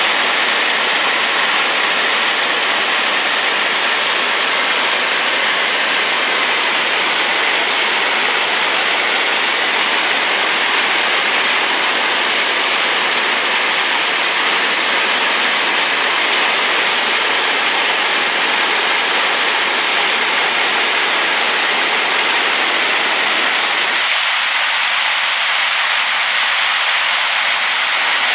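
Waterfall running full after rain: a loud, steady rush of falling water. The low rumble thins out about four seconds before the end.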